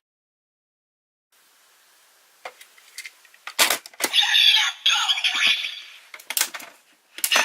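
Sharp plastic clicks from handling and pressing a Kamen Rider Proto Mighty Action X Gashat toy. About four seconds in, a tinny electronic sound effect plays for about two seconds from the toy's small speaker, then a few more clicks follow.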